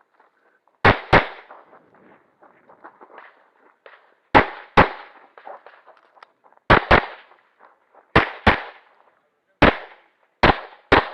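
Stock-service-class pistol fired eleven times in a stage of an IDPA match, mostly as quick pairs of shots about a quarter second apart, with fainter movement noise between strings.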